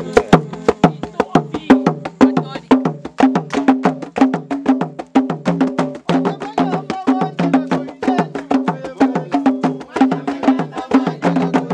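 Traditional Zambian drumming: fast, steady strokes at about five or six a second, with sharp wooden clicks over a repeating low two-note drum pattern.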